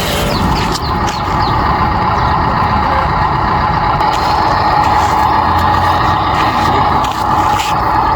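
Radio-controlled construction machinery working: a steady mechanical whine with scattered clicks.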